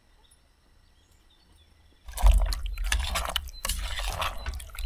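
Near silence for about two seconds, then sudden loud clattering and knocks over a low rumble on the microphone.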